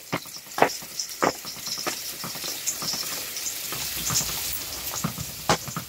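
Raw ground turkey sizzling in a hot, oiled frying pan while two wooden spatulas break it apart, with a scattering of sharp knocks and scrapes of the spatulas against the pan over the steady hiss.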